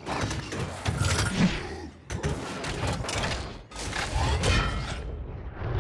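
Layered film fight effects of the Hulkbuster armour: heavy mechanical clanking, thuds and crashing impacts, with metal grinding along pavement. The sound breaks off abruptly about two seconds in and again a little before four seconds.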